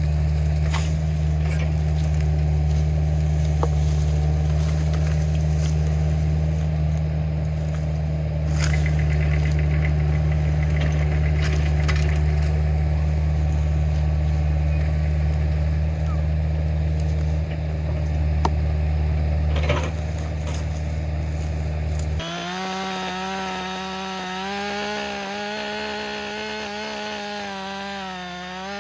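A steady low engine drone with scattered clicks. About two-thirds of the way in it gives way abruptly to a chainsaw running at high revs, its pitch wavering as it cuts into a hollow white oak log.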